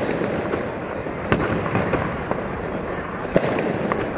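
Fireworks and firecrackers going off all around: a steady crackle of many small pops, broken by two sharper, louder bangs, one about a second in and one past three seconds.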